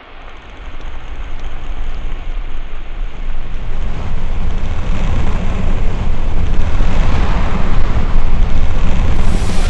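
Rushing roar of a gas-fed live-fire training prop as released gas ignites into a fireball, starting at once and building steadily louder.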